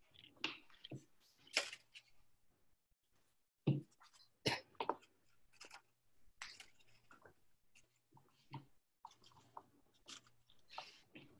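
Scattered clicks, taps and light knocks of hands handling painting supplies on a tabletop, including a small plastic paint pot with a snap-on lid being opened; the sharpest clicks come around four seconds in.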